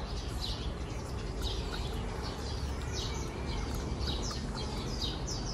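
Small birds chirping: a long run of short, high, falling chirps, two or three a second, over a low steady rumble of outdoor noise.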